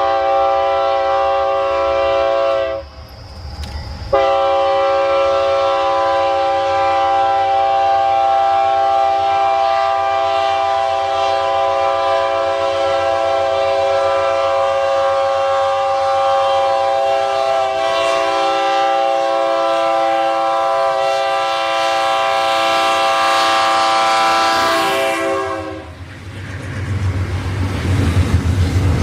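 Locomotive air horn sounding a long, steady multi-note chord, with a brief break about three seconds in, then held for some twenty seconds before it cuts off. A low rumble of the train follows near the end.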